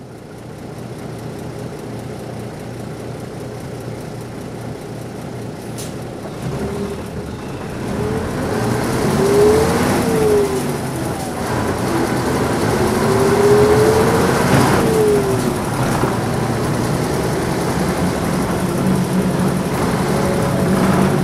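Nissan Diesel P-U33L city bus's diesel engine pulling away and accelerating through the gears, with the rattling note typical of this model. It runs low at first, then the engine note climbs and drops sharply at a gear change about halfway through, and again about two-thirds of the way in.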